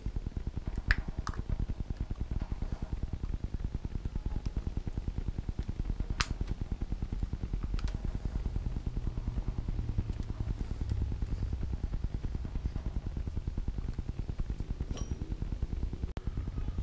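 A few sharp plastic clicks as a cover is handled and pressed onto an alternator's overrunning pulley, the loudest about a second in. Underneath is a steady, rapid low throbbing hum from a machine running nearby.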